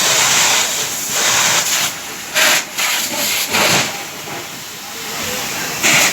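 Water jetting from a fire hose nozzle, a loud hiss that comes in several bursts, starting and stopping.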